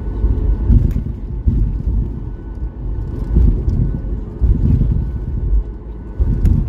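Cabin noise of a Boeing 737-8200 taxiing slowly on the ground: an uneven low rumble with a faint steady whine from the engines at taxi idle, and a couple of light clicks.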